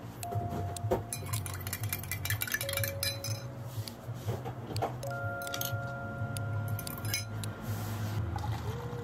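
Glassware and utensils clinking in quick, irregular taps, over background music with long held notes and a steady low hum.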